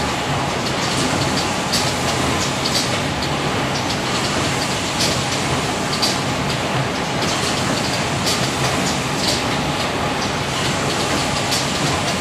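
AJB540A automatic wine box making machine running, a steady mechanical din with sharp clacks about once a second.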